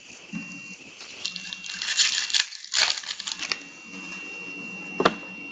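Foil wrapper of a 2014-15 SP Authentic hockey card pack crinkling as it is torn open, with trading cards being handled, then a single sharp click about five seconds in.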